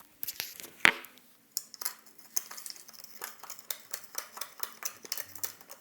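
Metal hand tools and small parts being handled on a workbench: a sharp knock about a second in, then a run of light clicks, taps and clatter.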